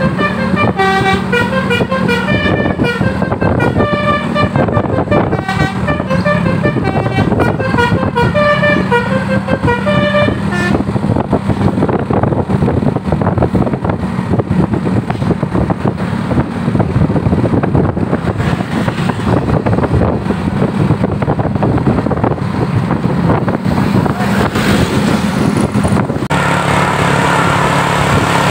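Basuri multi-tone "telolet" bus horn playing a quick tune of stepped notes for about the first ten seconds, over a running bus engine. Then bus engine and road noise, with the engine sound changing near the end.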